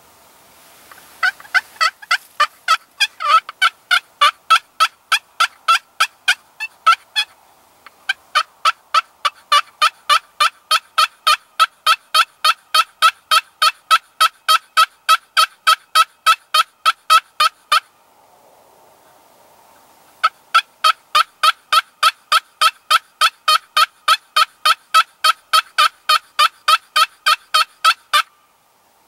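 Hunter's turkey call running a long, steady string of hen yelps, about three a second: a consistent yelp meant to gather turkeys to the roost. It comes in three runs, with short pauses at about 7 seconds and from about 18 to 20 seconds.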